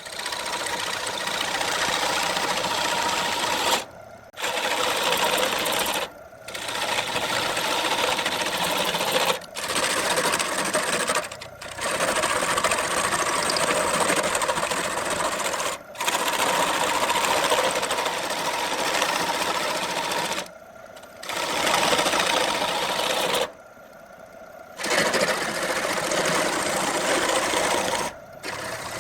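Wood lathe running while a turning tool cuts the spinning redwood blank, a steady grinding whir. It is broken by about eight short drops every few seconds.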